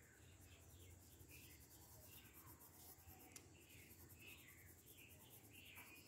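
Near silence, with the faint scratch of a coloured pencil on paper in short, irregular shading strokes.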